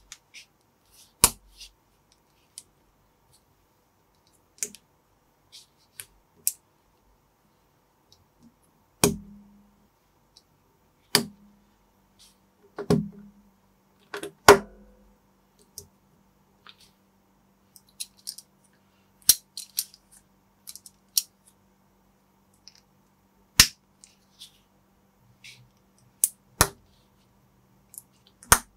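Plastic building bricks clicking and snapping as pieces are handled and pressed together: sharp single clicks at irregular intervals, with a few close together about halfway through.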